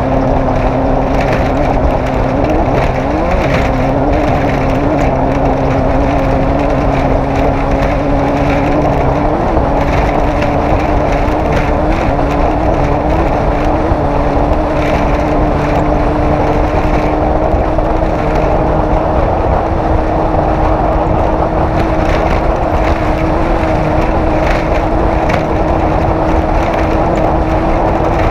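Off-road race vehicle's engine running loud and continuously. Its pitch wavers up and down for the first several seconds, then holds nearly steady and creeps slightly higher.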